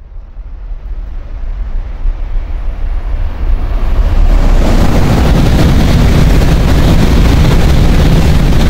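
An N700-family Shinkansen train running through the station at high speed without stopping: its rushing noise builds over about four seconds as it approaches, then holds loud and steady as the cars go past.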